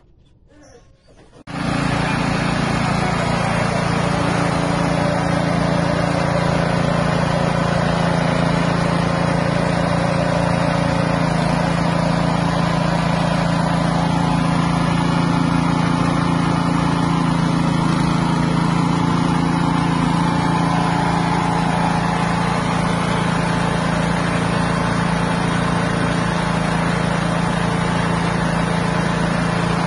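Small engine driving a floating fish-feed pellet extruder, running steadily at an even speed with a strong low hum. It starts abruptly about a second and a half in.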